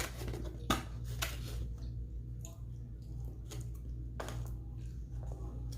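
Eating and food-handling sounds: a few sharp clicks or taps, two close together early on and one about four seconds in, with small soft handling noises between, over a steady low hum.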